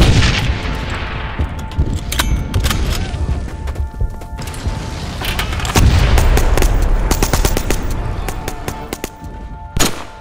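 A .30-calibre Browning machine gun firing in rapid bursts, mixed with other gunshots, over background film music. The fire is loudest at the start and again about six seconds in.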